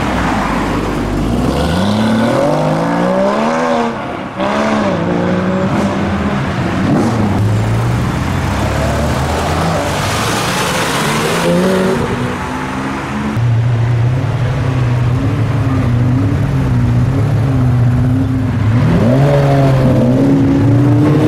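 Performance car engines accelerating away one after another. The revs climb, dip at a gear change about four seconds in and climb again. A loud rushing pass comes near the middle, then an engine runs steadily before revving up again near the end.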